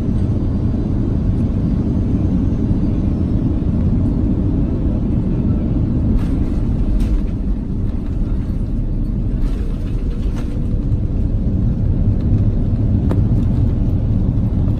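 Steady, loud low rumble inside an airliner's cabin as the jet rolls along the runway after landing: engine noise and wheel rumble together, with a few faint clicks and rattles.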